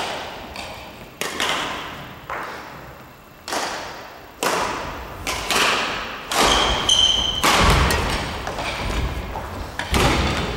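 Badminton shuttlecock struck back and forth by rackets in a fast doubles rally: sharp hits about once a second, each ringing on in the echo of a large gymnasium. A brief high squeal about seven seconds in.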